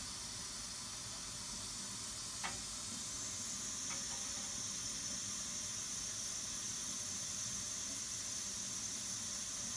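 Air hissing steadily out of a hot-water boiler's heating line as it is bled while water refills the system after a circulator pump replacement, the hiss growing stronger and higher about three seconds in. A couple of faint clicks come a few seconds in.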